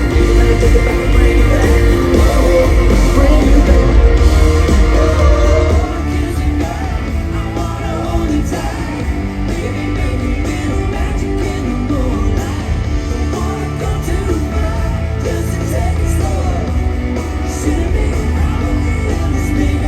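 Music with a singing voice and guitar, louder for the first six seconds or so, then a little quieter.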